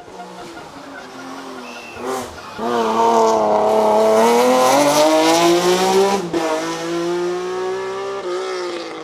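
Hill-climb race car's engine at high revs, swelling loud as the car accelerates out of a hairpin and passes close by, the note rising in pitch, breaking briefly about six seconds in, then fading away near the end.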